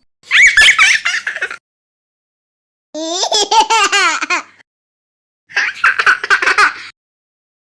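Laughter sound effect played after a punchline: three separate bursts of laughing, each lasting a little over a second, with silent gaps between them.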